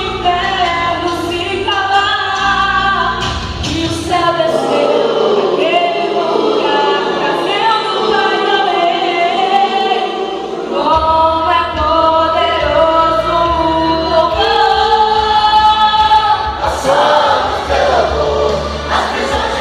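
Choir singing a gospel praise song with instrumental accompaniment. The low bass drops out for several seconds in the middle, then comes back in.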